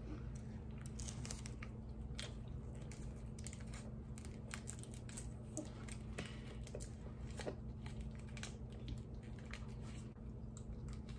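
Crinkling of a small plastic candy wrapper being picked open by hand: an irregular, close run of crackles and clicks, with some chewing mixed in.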